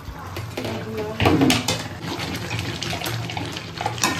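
Kitchen sounds: a steady hiss, like water from a tap or food sizzling in a pan, with the clatter of utensils, loudest about a second and a half in.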